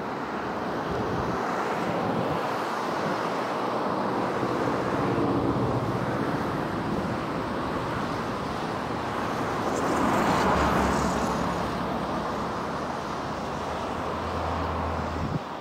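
Twin turbofans of a Pilatus PC-24 business jet running at low power on the runway, a steady jet rush that swells about ten seconds in.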